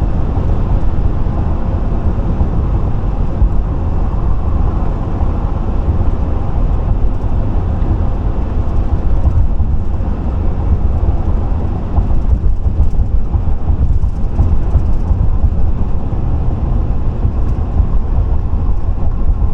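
Steady road noise of a car driving at highway speed: a continuous rumble of tyres and wind, heaviest in the low end.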